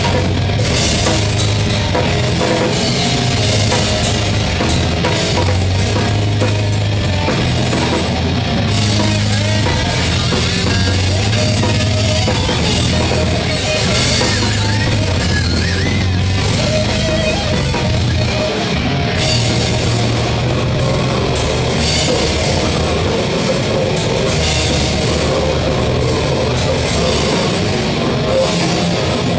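Black metal band playing live, loud and unbroken, with the drum kit up front and the rest of the band behind it.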